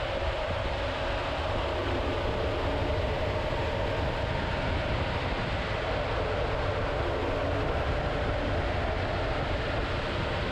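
Belt-driven HVAC blower running, its electric motor turning the blower pulley through a red PowerTwist link V-belt: a steady, even rushing noise with a constant hum that does not change.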